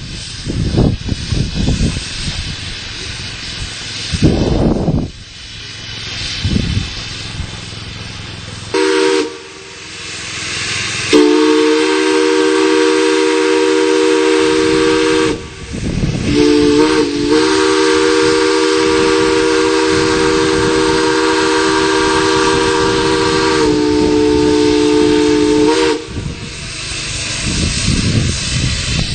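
Railroad chime steam whistle blown on steam. The first several seconds are hissing in bursts. Then the chord sounds, a short blow about nine seconds in followed by long held blows, and the chord shifts slightly partway through.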